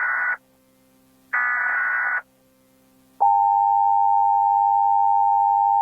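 Emergency Alert System header and attention signal: a burst of screechy digital data tones cuts off just after the start, and a second burst of just under a second follows a second later. About three seconds in, the loud, steady two-tone EAS attention signal begins and holds.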